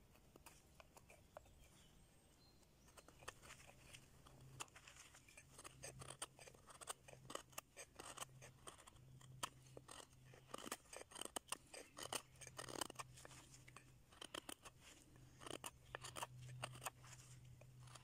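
Knife blade shaving thin curls off a stick of resin-soaked fatwood: a rapid, irregular run of short, faint scraping strokes that starts a few seconds in. A faint steady low hum runs underneath.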